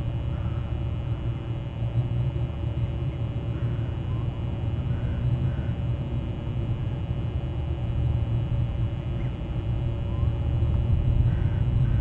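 Steady low outdoor rumble, with faint, distant bird calls breaking through now and then.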